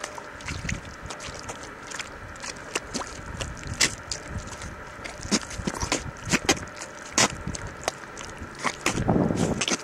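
Bare feet squelching in soft wet mud, with irregular wet sucking and popping noises as the mud grips and lets go of the toes and soles. A louder, muffled rush comes about nine seconds in.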